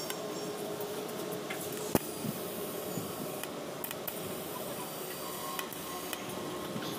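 TIG welding on stainless-steel tube: a steady, even hiss of the arc, with one sharp click about two seconds in and a few fainter ticks.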